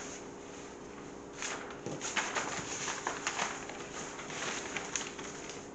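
Large paper sheets being handled and laid on a wooden table: irregular rustles and light slaps of paper starting about a second and a half in, over a faint steady hum.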